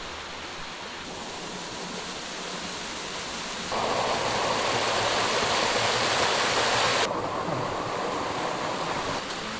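Rushing water of a creek's waterfalls and cascades, a steady hiss that steps up abruptly about four seconds in and changes suddenly again about seven seconds in.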